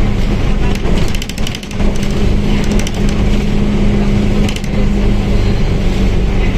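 Mercedes-Benz OF1721L bus on the move: a steady engine drone with a held tone running under it. Bursts of rapid clicking rattles come about a second in and again at about four and a half seconds.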